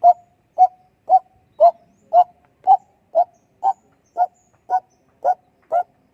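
A night bird calling: one short note repeated steadily about twice a second. The searcher guesses it may be an owl.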